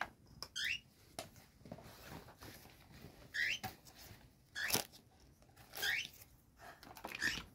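A pet bird giving short, rising chirps every second or few, with the soft flip and rustle of notebook pages being turned.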